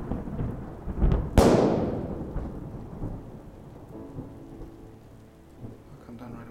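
Thunder: a sharp crack about a second and a half in that rolls away and fades over the next few seconds, over steady rain.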